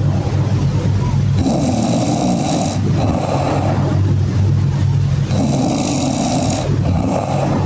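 A person snoring loudly, in slow, regular breaths about four seconds apart.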